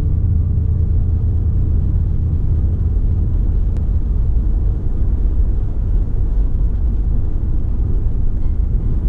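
Steady low rumble of a car driving, tyre and road noise without engine notes standing out.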